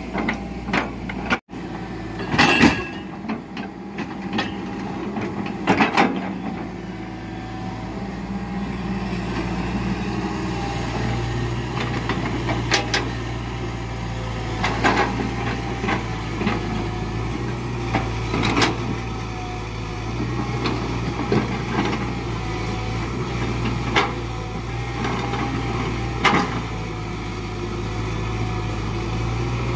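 Hitachi Zaxis 120 excavator's diesel engine running steadily under a log-grapple load, with sharp knocks and clanks every few seconds as the grapple works the logs.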